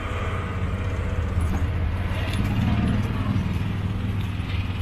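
Auto-rickshaw engine running steadily while the tuk-tuk drives, a low drone with road rattle, heard from inside its open cab.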